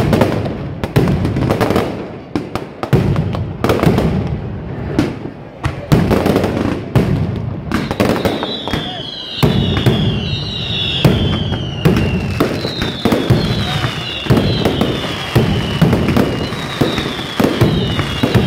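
Daytime traca fireworks: a dense, rapid barrage of firecracker and salute bangs. From about eight seconds in, repeated shrill falling whistles from whistling fireworks sound over the bangs.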